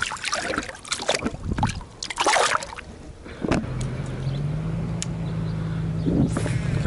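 Water splashing and sloshing as a largemouth bass is let go back into the water. About three and a half seconds in, a steady low engine hum starts and steps up in pitch once.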